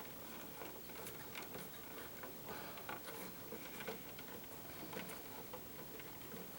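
Faint, irregular small clicks and ticks of electrical wires in a wall junction box being handled and straightened.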